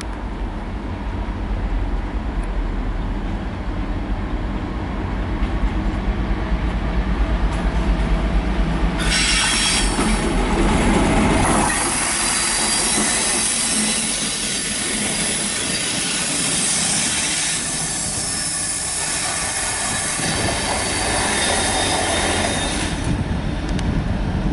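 Class 56 diesel locomotive running light engine, its Ruston-Paxman V16 diesel engine running steadily as it approaches. From about nine seconds in it passes with a loud, high wheel squeal on the curved track, which fades near the end.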